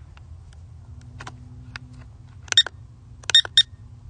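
Short electronic beeps in two quick groups, two and then three, about two and a half and three and a half seconds in, over a low steady hum.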